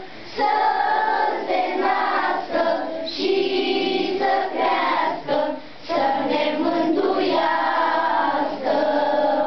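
A group of children singing a song together in unison, line by line, with short breaths between phrases.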